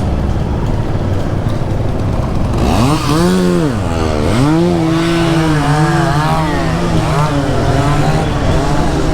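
Yamaha R15's single-cylinder engine under way, heard over wind rumble. About three seconds in its note rises, drops sharply a second later, then climbs again and holds fairly steady with small wavers in revs.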